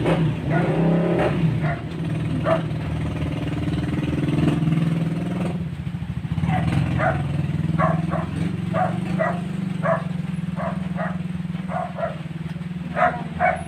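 A dog barking repeatedly, about two barks a second, from about six seconds in, over a steady low motor hum.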